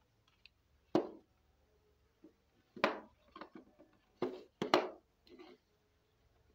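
Hard plastic toy bird knocking and clicking against a table top as it is handled and set down: four sharp knocks, the last two close together, with lighter clicks between.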